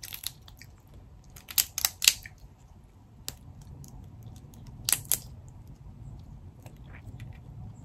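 Cooked king crab leg shell being cracked and snapped apart by hand: several sharp cracks, two close together near the two-second mark, one around three seconds in and a pair about five seconds in, with faint handling between.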